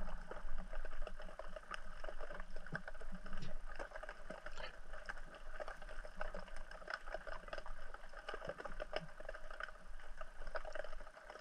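Underwater crackling: a dense, irregular scatter of small clicks and snaps from marine life on the seabed, a sign of plenty of life in the area.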